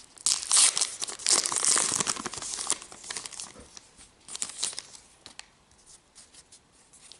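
Plastic wrapper of a Topps Gypsy Queen trading card pack being torn open and crinkled. The tearing and crinkling is densest for the first three seconds, then thins to a few light crinkles that die away about five seconds in.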